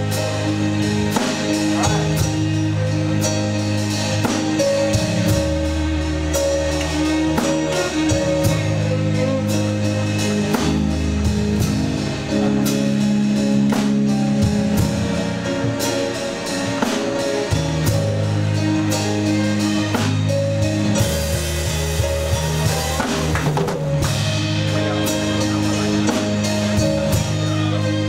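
Instrumental worship music: a drum kit keeping a steady beat under sustained bass and chord notes that change every few seconds.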